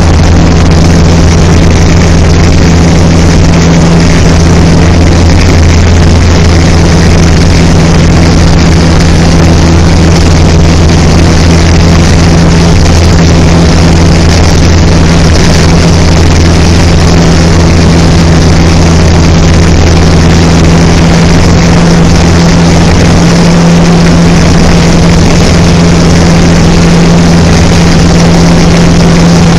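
Light aircraft engine and propeller droning steadily in flight, heard from inside the cabin: a loud, even drone with a deep hum that does not change.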